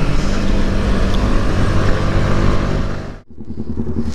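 Yamaha R15 V3 motorcycle running at a steady cruising speed, its engine mixed with wind and road noise on the helmet microphone. After a sharp cut about three seconds in, a motorcycle engine idles with an even putter.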